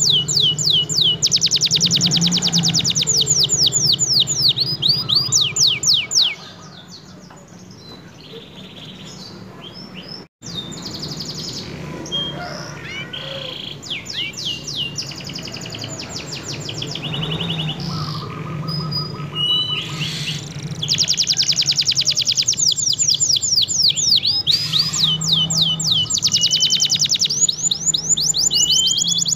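Domestic canary singing long rolling trills of fast, repeated falling notes. After about six seconds the song turns quieter and broken, with a brief dropout near ten seconds, then the loud trills return a little past twenty seconds. A low steady hum runs underneath.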